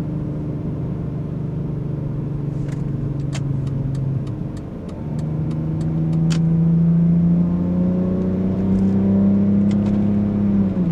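BMW E46 Touring with a muffler-delete, straight-through stainless exhaust, heard driving from inside the cabin: the engine runs steadily, eases off briefly, then pulls with a steadily rising note and louder drone before dropping away sharply near the end, as at a gear change. A run of quick light ticks, about four a second, sounds in the middle.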